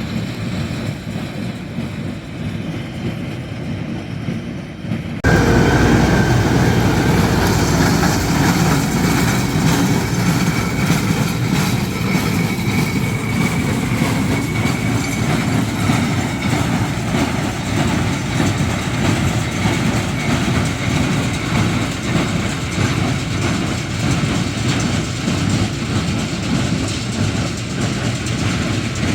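Tractor pulling a hay baler, running steadily through the field. About five seconds in the sound abruptly becomes louder and closer.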